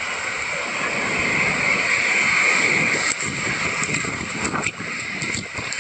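Steady rushing noise, with a few faint knocks in the second half.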